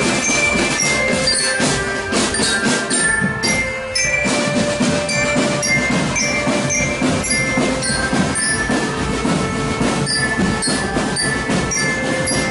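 Marching drum band playing: dense snare and bass drum beats under a melody of held notes, with short, high mallet-bell (bell lyra) notes on top. The playing thins briefly about three and a half seconds in.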